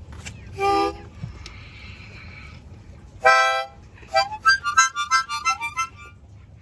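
Harmonica played in short bursts: a brief chord near the start, a longer held chord about three seconds in, then a quick run of short notes.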